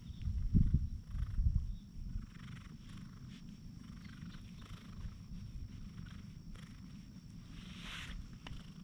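Domestic cat purring as it is stroked, a continuous low rumble that is louder for the first second or two, with soft rustling of a hand rubbing its fur.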